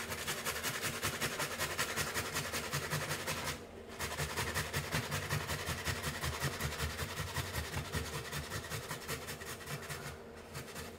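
A tomato being grated by hand on a metal box grater: quick, steady back-and-forth strokes, with a short break about four seconds in, stopping about a second before the end.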